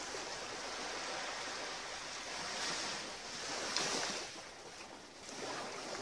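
Small waves washing against the shore, swelling and easing a few times.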